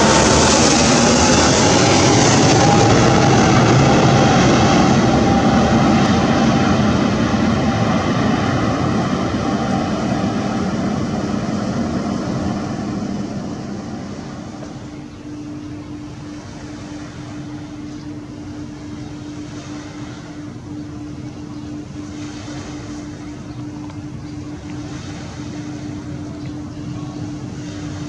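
Sukhoi Superjet 100's twin SaM146 turbofans passing low overhead on landing approach: a loud jet roar with a falling whine that fades away over about fifteen seconds. A quieter steady drone with a single low hum remains after it.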